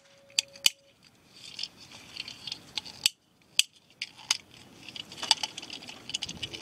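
Toy cap gun being worked by hand: four sharp snaps in two pairs about three seconds apart, with small clicking and rattling of its plastic and metal parts between them.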